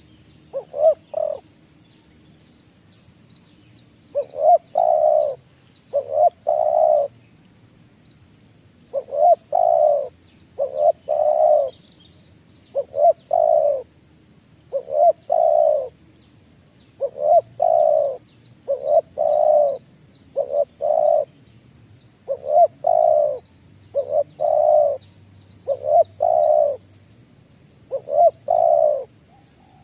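A dove cooing: low, hooting notes in repeated groups of two to four, a phrase every couple of seconds. Faint high chirps of small birds run underneath.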